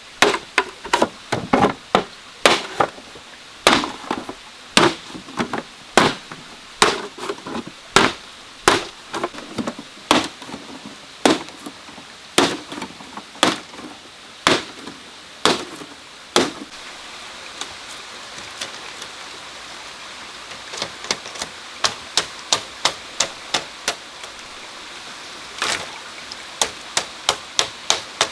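A hand tool chopping or hammering wood with repeated sharp blows, about one to two a second, many followed by a brief hollow ring. After about sixteen seconds a steady hiss comes up, and the blows turn lighter and quicker in short clusters, with one heavier blow near the end.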